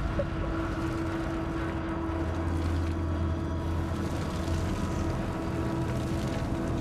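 A steady low drone: a held mid-pitched tone over a low rumble that swells somewhat in the middle, with no speech.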